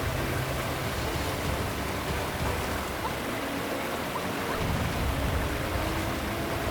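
Steady rushing of water, with a low rumble underneath that drops away about two seconds in and comes back after about four and a half seconds.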